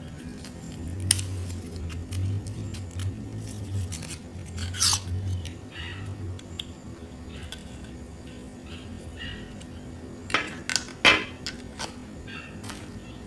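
A plastic concealer tube and its cardboard box handled and set down on a glass tabletop: scattered small clicks, taps and clinks, with a quick run of sharper clinks about ten to eleven seconds in.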